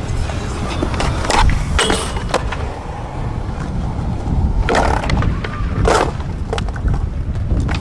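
Skateboard wheels rolling on concrete with a steady low rumble, broken by several sharp wooden clacks of the board during a trick attempt on a brick bank, the loudest about five and six seconds in.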